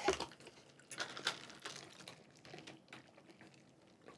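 Faint, irregular clicks and taps from a drink cup being handled and sipped from, most of them in the first two seconds.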